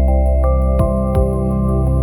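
Ambient new-age relaxation music: held tones over a deep, steady low drone.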